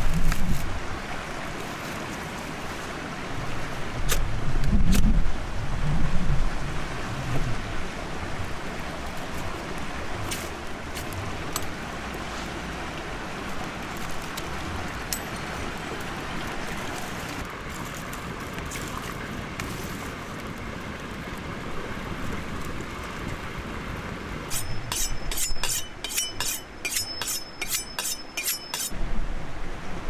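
Dry grass and twig kindling catching and burning in a stone fire pit: a steady hiss with scattered sharp crackles. Near the end comes a quick run of high, evenly spaced clinks.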